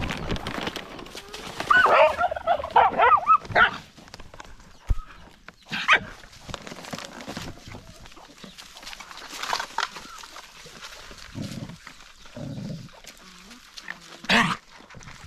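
Dogs yelping and whining, a loud run of high, wavering cries about two seconds in, followed by scattered quieter noises and one short loud sound near the end.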